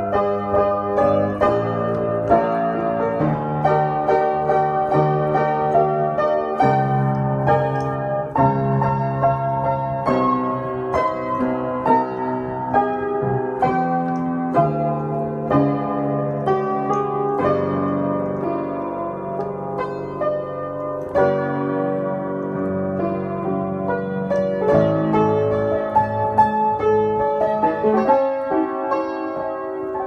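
Piano music: chords and melody notes played one after another, easing off slightly near the end.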